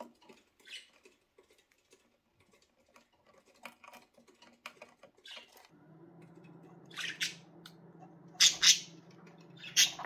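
Pet budgerigars: faint scattered clicks of pecking at seed, then a few short, sharp budgie squawks, the loudest about eight and a half seconds in. A steady low hum starts a little past halfway.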